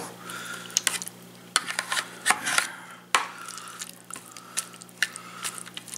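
Metal fork scraping and tapping against a plastic microwave meal tray while stirring egg noodles in broth, with scattered sharp clicks.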